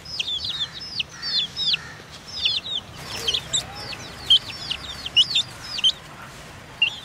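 Young chicks peeping: short, high calls that slide downward in pitch, coming several a second in quick runs with brief pauses between.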